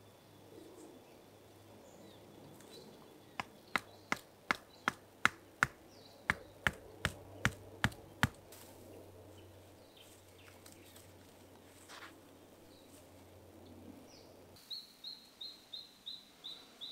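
A tent stake for a tarp guyline being knocked into the ground: about a dozen sharp knocks at an even pace over some five seconds. Near the end a bird calls a quick run of short, high notes.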